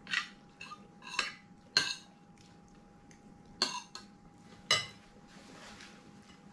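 Cutlery clinking against a dish while eating: several sharp, ringing clinks with a few lighter taps between them, over a faint steady hum.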